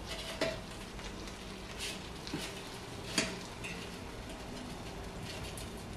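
Chicken wings being turned over by hand in a nonstick air fryer basket, making a few soft, scattered taps and clicks against the basket, the loudest about three seconds in.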